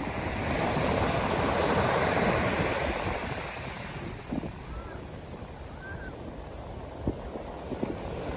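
Ocean surf breaking and washing up the beach. It swells over the first few seconds and then ebbs, with wind buffeting the microphone in low gusts.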